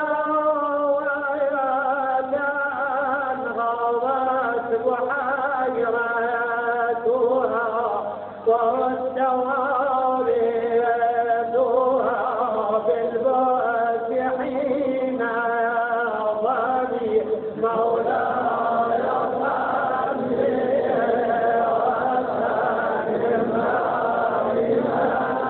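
Chanting of a qasida, a sung Persian poem, in a long melodic vocal line with held, wavering notes and a short break about eight seconds in.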